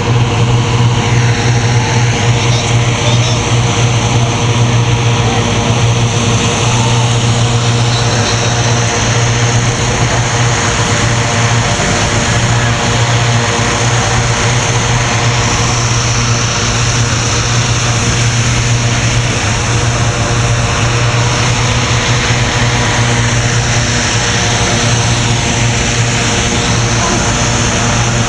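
Engine-driven hot air balloon inflator fans running steadily, a loud low hum with a rushing of air as they blow air into the balloon envelopes during inflation.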